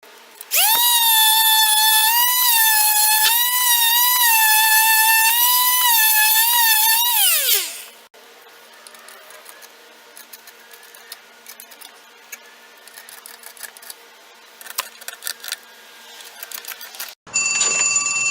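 Small electric power tool whining as its motor spins up, runs steadily for about seven seconds and winds down with a falling pitch. Light clicks and scraping follow. Near the end a phone starts ringing.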